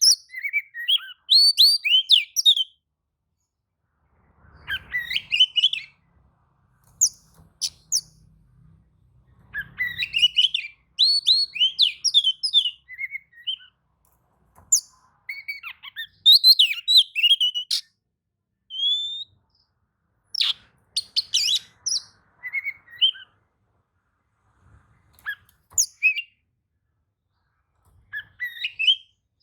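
Oriental magpie-robin (kacer) singing: bursts of rapid, varied whistled and chattering phrases, separated by pauses of a second or two.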